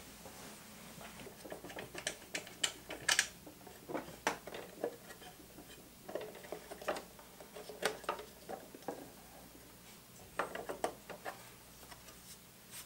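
Irregular clicks, taps and light knocks of the bottom cover plate of a Singer 503A sewing machine being worked loose and lifted off the machine's underside by hand.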